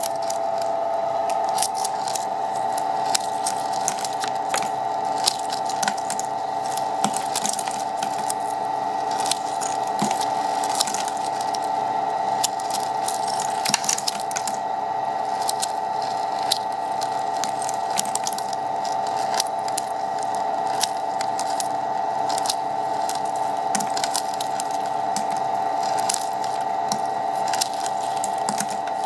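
Maja flake ice machine running with a steady mechanical hum, while ice crackles and crunches irregularly as the scraper breaks thin flakes off the frozen rotating drum.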